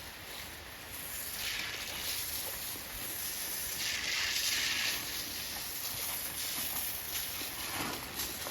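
Heavy rain pouring down, a steady hiss that swells louder twice.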